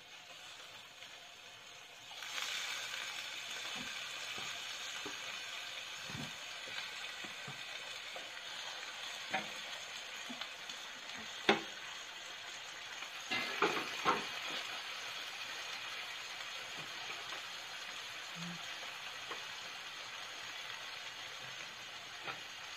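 Chicken pieces sizzling in a hot stainless steel frying pan, the sizzle coming up about two seconds in and holding steady. A few sharp clacks sound about halfway through.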